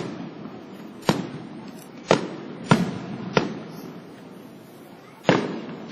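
Aerial fireworks shells bursting overhead: about six sharp bangs at irregular intervals, each followed by a short echoing rumble, the one near the end the longest.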